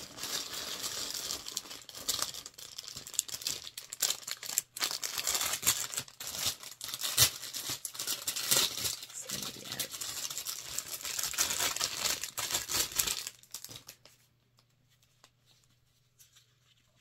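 Crinkly packaging being handled and torn open, a dense crackling and tearing that stops about thirteen and a half seconds in.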